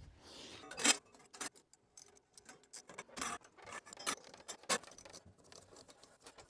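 Small metal parts being handled and fitted: irregular light clicks, clinks and scrapes.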